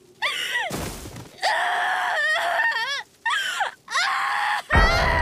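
A young girl's voice crying and wailing in high, wavering sobs broken by gasping breaths. Near the end a loud rushing noise sets in.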